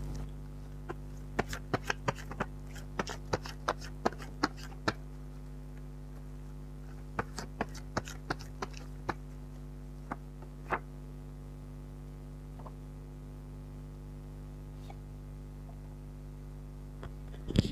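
Tarot cards being drawn and laid down: a string of sharp taps and clicks in two bunches, then two single taps, over a steady low electrical hum.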